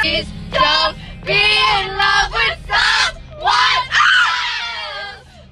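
A group of young women singing along loudly together in short, held phrases, over a low steady rumble.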